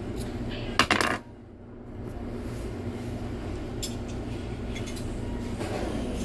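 Metal parts of a safe lock clinking together in a short clatter about a second in, as the lock is handled and refitted into its housing. A few light clicks follow over a steady low hum.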